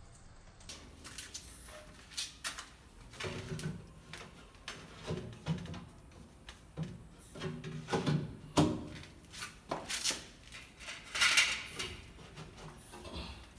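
PVC pipe pieces being handled and adjusted on the rim of a glass tank: irregular knocks, clicks and scrapes of plastic against plastic and glass, with a longer scrape about 11 seconds in.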